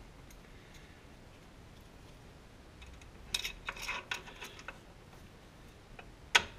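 Light metal clicks and clinks of drum-brake hardware being fitted by hand: a brake shoe's hold-down spring and retainer clip going onto its pin. The clicks come in a short cluster about halfway through, with one sharp click near the end.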